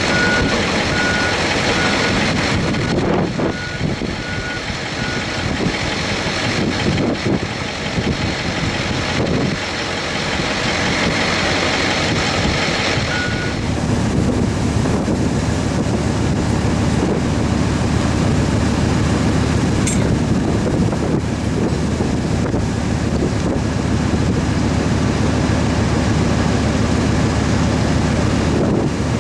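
A vehicle's reversing alarm beeping in a steady, evenly spaced series over loud rushing wind noise, stopping about halfway through. After that the wind noise continues with a low steady hum underneath.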